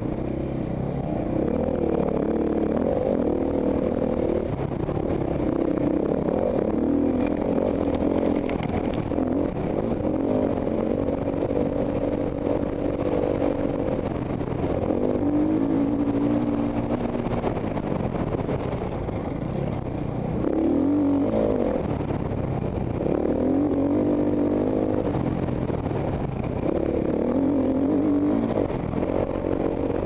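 Enduro dirt bike engine heard close up, revving up and dropping back again and again as the rider works the throttle and shifts gears along a rough trail.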